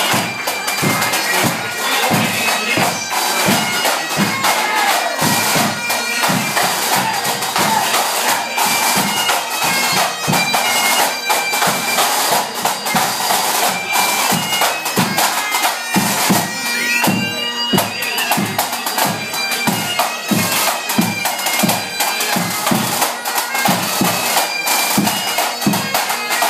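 Pipe band playing a tune: Highland bagpipes with their steady drone and melody over the regular beat of a bass drum and snare.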